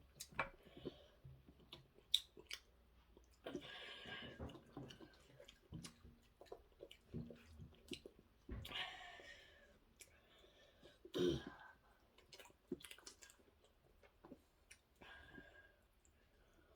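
A person eating: chewing with scattered small clicks and mouth noises.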